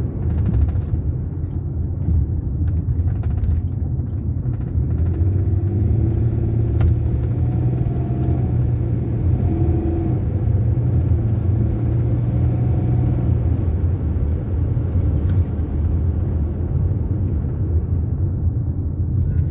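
Range Rover's BMW 3-litre engine and road noise heard from inside the cabin while cruising, a steady low rumble. A clearer, even engine hum comes through from about five to fourteen seconds in, with a single click near seven seconds.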